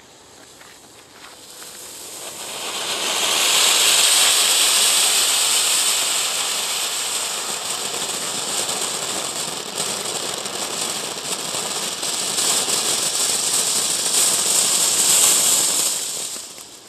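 Category 1 ground fountain firework spraying sparks with a steady hiss. It builds up over the first few seconds and dies away near the end as the fountain burns out.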